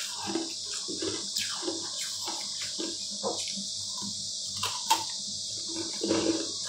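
Close-up crunching and wet chewing of a frozen green ice ball, with a few sharp cracks as the ice breaks.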